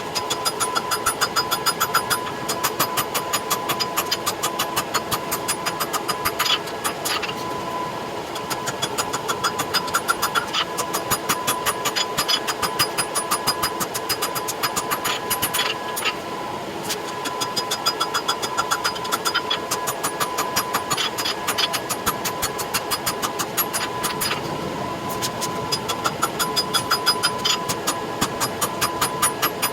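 Blacksmith's power hammer running and striking hot steel in a fast, even rhythm of blows over a steady motor hum, forging the domed heads of nail header blanks in its dies. The rhythm breaks briefly a few times, with single louder strikes.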